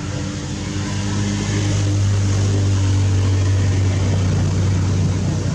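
An engine running steadily, a low hum that grows louder about a second in and stays up.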